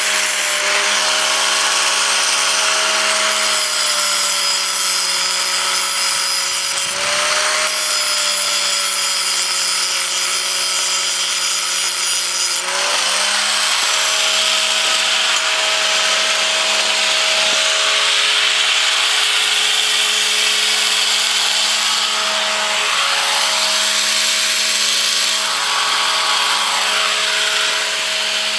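Electric angle grinder running continuously, grinding off the ends of steel bolts. Its motor pitch sags and recovers as it is pressed into the metal, most clearly about 7 and 12 seconds in.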